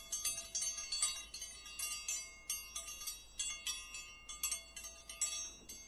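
A tinkling chime sound effect: a quick run of high bell-like strikes, several a second, ringing into each other like wind chimes.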